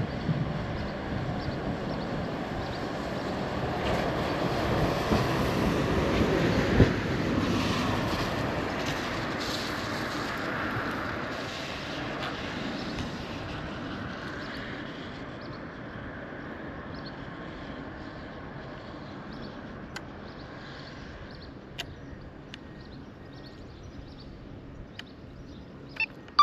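A vehicle passing by: a broad rushing noise that builds to its loudest a few seconds in, then fades away slowly over about twenty seconds.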